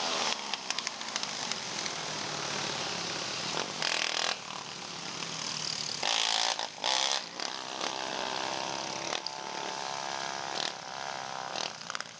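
Several racing ATV engines revving and easing off as the quads run round the track, the pitch rising and falling through the turns. Two short bursts of loud rushing noise stand out, about four seconds in and again around six to seven seconds in.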